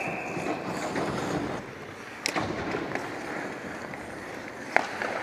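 Ice hockey skates scraping and gliding on the rink ice, with two sharp clacks of hockey sticks, about two seconds in and near the end.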